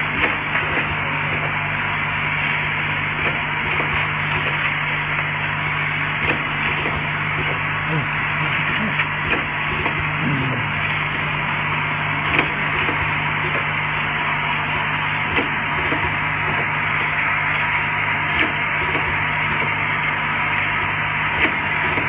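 Vibratory cap-sorting bowl feeder of a capping machine running: a steady low buzz under a dense rattle of dropper caps, with scattered sharper clicks.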